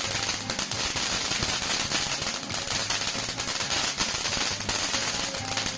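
Ground fountain firework (paputok) spraying sparks, with a steady hiss and a dense, rapid crackle of many small pops.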